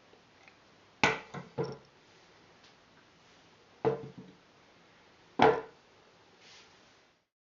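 GHK AK gas blowback airsoft rifle firing single shots, each a sharp crack as the bolt carrier with its heavy piston cycles. Two shots come close together about a second in, then two more spaced about a second and a half apart.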